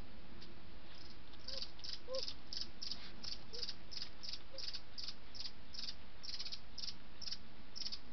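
Cricket chirping in a steady rhythm, short high-pitched chirps about three a second, starting about a second in, over a steady hiss.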